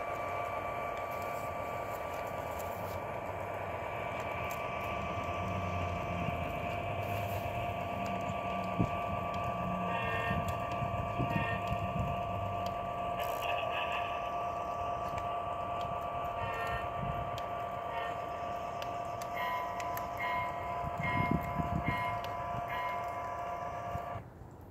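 An O gauge model train running on its track, with a steady whine that cuts off suddenly near the end. Short repeated high tones come and go over it in the middle and again in the last few seconds.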